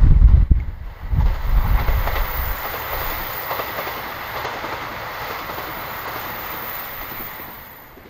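Strong wind buffeting the microphone at first, then a KiHa 261 series diesel limited express train running past on curved track: a steady wheel-and-rail rush with a thin high squeal on the curve, fading near the end as the train moves away.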